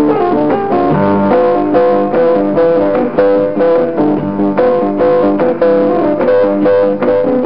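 Instrumental background music with plucked guitar notes, played steadily.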